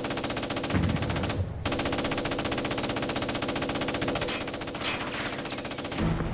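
Machine-gun fire in long, rapid bursts, with a brief break about one and a half seconds in.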